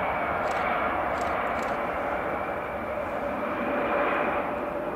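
Embraer E-Jet regional airliner's twin turbofan engines at takeoff thrust during the takeoff roll: steady engine noise with a high whine on top, swelling slightly about four seconds in as the nose starts to lift.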